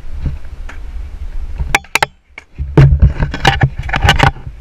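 Skateboard wheels rolling over concrete with a low rumble, then a run of sharp clacks and knocks from the board about three seconds in.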